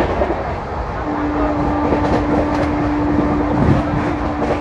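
Steady running noise of a moving passenger train heard from inside the coach. A steady hum on a single pitch joins in about a second in.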